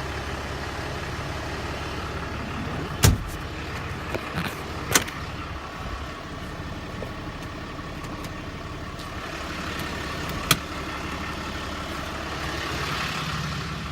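A 6.7-litre Cummins diesel engine idling steadily in a Ram 4500 service truck, with three sharp knocks, about 3, 5 and 10 seconds in.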